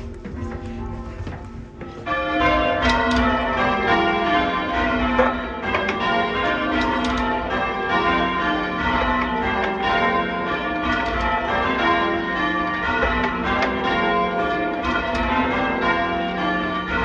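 Church tower bells of All Saints, Stranton, rung in English change ringing, the bells struck one after another in quick succession. The bells come in loudly about two seconds in, after a quieter low rumble.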